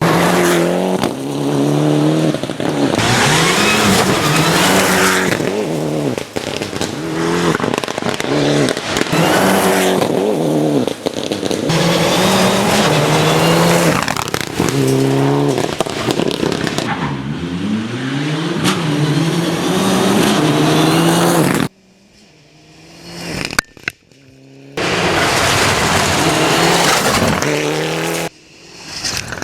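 Gravel rally cars at full throttle: engines revving hard, the pitch climbing and then dropping at each gear change, again and again, over a dense hiss of tyres on loose gravel. About three quarters of the way through, the sound breaks off suddenly into a quieter gap with a click, then another car comes in at full throttle.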